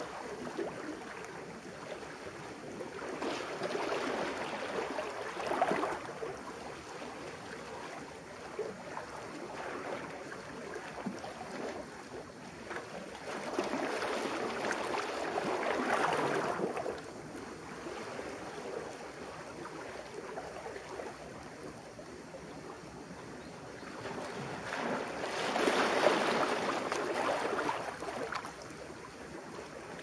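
Sea waves washing in over wet boulders, swelling three times about ten seconds apart, with a steady wash of water between.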